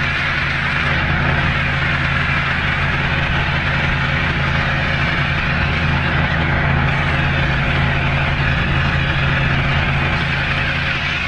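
Pressure washer's engine running steadily, with a steady hiss of high-pressure water spray over it.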